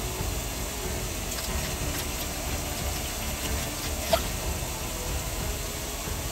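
Hands squishing and mixing a moist rice, broccoli and cheese casserole mixture over a steady low rumble, with faint ticks and one sharp click about four seconds in, as the hands scoop the mixture from a stainless steel bowl.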